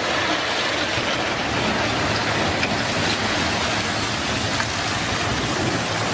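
Fast-flowing floodwater rushing, a steady dense noise with no breaks.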